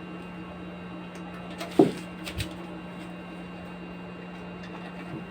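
Steady low electrical hum from an amplified speaker system idling between test tracks. About two seconds in there is a sharp knock, followed by two quick clicks.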